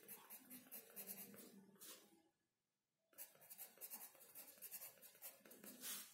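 Pencil writing on sketchbook paper: faint, scratchy strokes of the point forming letters. The strokes stop for about a second midway, then resume, with a slightly louder rub of the hand across the paper near the end.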